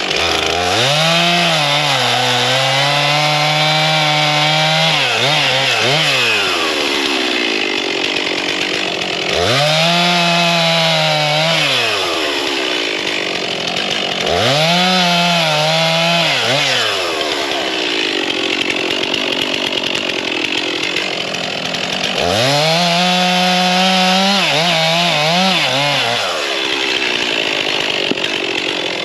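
Two-stroke chainsaw revved up to full speed and cutting firewood rounds, about four times, each cut holding several seconds with a wavering pitch under load before the engine falls back toward idle. A fifth cut begins near the end.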